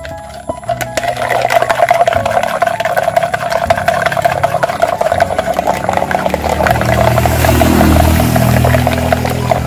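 A plastic spoon stirring a drink in a plastic cup, clicking and scraping quickly against the sides. A low rumble swells about seven seconds in.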